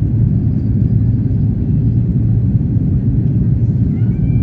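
Jet airliner taking off, a loud steady low rumble from its engines with no rise or fall.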